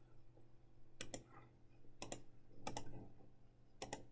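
Four quick key presses, each a sharp double click, about a second apart, as a calculation is keyed in, over a faint steady low hum.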